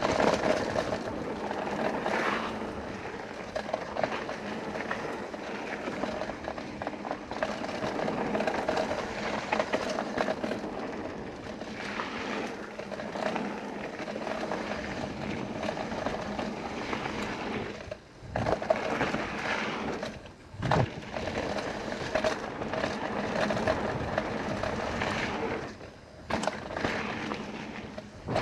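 Mountain bike rolling fast down a packed-dirt trail: steady tyre noise on dirt and gravel with a continual rattle and clatter of the bike over bumps. A few times it briefly drops away and comes back with a knock.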